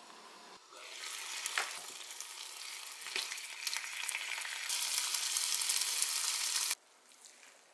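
Marinated pork pieces sizzling in a frying pan, with a few clicks of metal tongs turning them. The sizzle grows louder about two-thirds of the way through, then cuts off abruptly about a second before the end.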